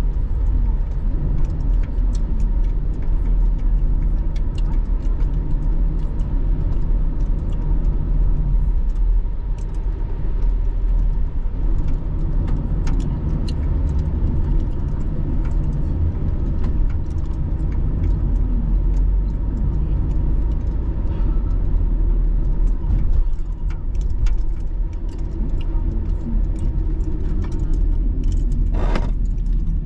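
Car cabin noise from a car in slow traffic: the engine runs near idle under a steady low rumble, with scattered light clicks and rattles throughout.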